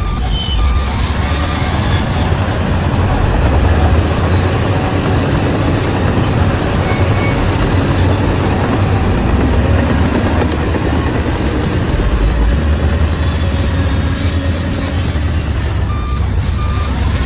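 Bulldozer working: a steady low diesel rumble with high squealing tones from its steel tracks, coming and going.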